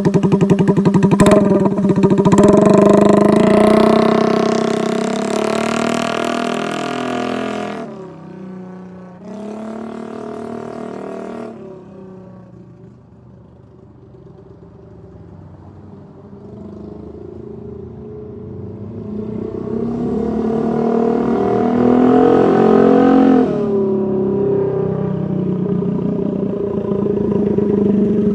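Honda Navi's 110cc single-cylinder engine running through a Vance & Hines exhaust with the baffle removed, extremely loud. It climbs in pitch as it is throttled up, falls away to a much quieter stretch in the middle, then builds up loud again.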